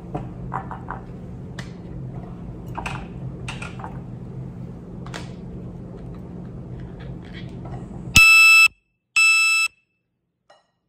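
Faint scattered taps and clicks of mushroom stems being twisted out and dropped into a glass bowl, over a steady low hum. About eight seconds in, an electronic beeper sounds twice, each beep about half a second long and much louder than anything else.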